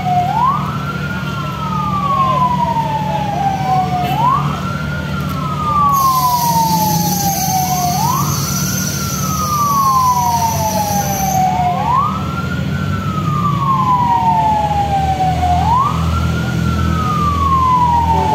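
Fire truck siren wailing in a repeating cycle: a quick rise in pitch, then a long slow fall, about once every four seconds, over a steady low engine hum.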